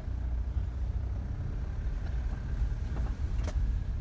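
Low steady rumble of a car's engine and tyres heard inside the cabin as the car rolls slowly, with a single faint click about three and a half seconds in.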